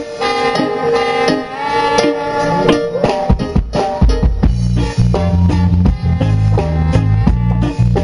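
Live rock band playing through the stage PA during a sound check: electric guitar notes over drum hits, with a deep bass line coming in about halfway through.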